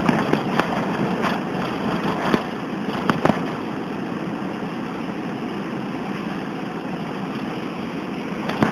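Steady running noise of a car heard from inside the cabin, with a few sharp clicks in the first few seconds and one near the end.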